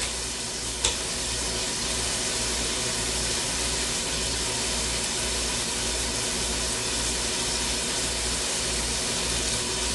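Chopped bacon frying in a pot, a steady sizzle as it renders its fat, with one sharp tap about a second in.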